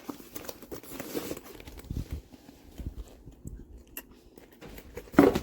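Irregular rustling and clicking from a fabric backpack being handled, with a louder burst near the end.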